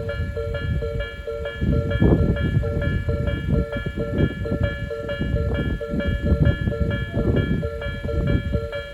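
Japanese level-crossing warning bell ringing in a steady repeated ding, about two strokes a second. Under it a Tobu Isesaki Line train passes through the crossing, its wheels rumbling and clacking over the rails.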